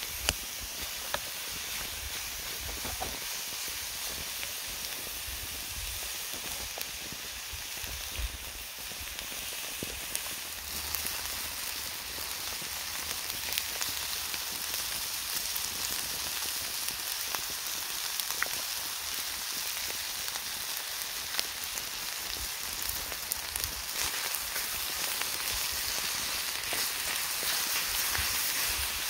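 Steady rain falling, with scattered single drips clicking.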